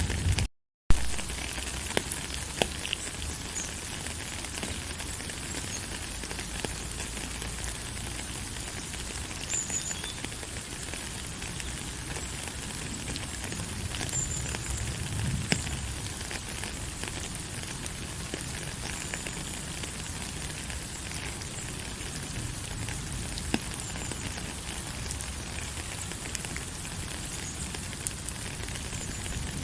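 Steady rain falling, an even hiss with scattered drop ticks and a low rumble beneath. It cuts out for a moment just under a second in, then carries on.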